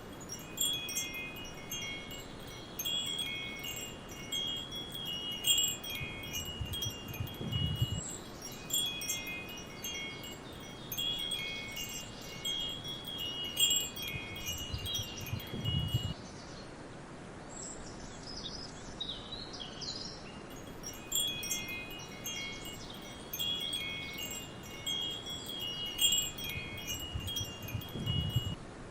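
Wind chimes tinkling in irregular clusters of high, ringing tones. They fall silent for a few seconds about halfway through, then start again, over a steady forest background hiss.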